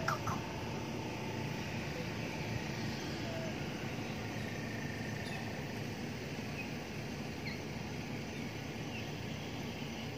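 Steady outdoor background hiss and rumble, with a couple of soft knocks at the very start and a few faint, brief squeaks scattered through it.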